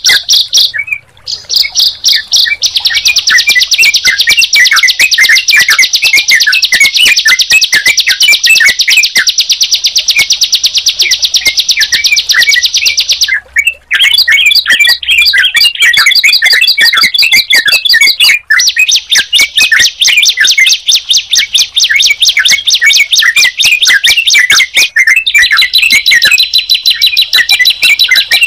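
Recorded calls of a bar-winged prinia (ciblek) and a yellow-vented bulbul (trucukan) played together: a loud, high-pitched chatter of rapid repeated chirps that barely pauses, broken only by a few short gaps where the recording is joined.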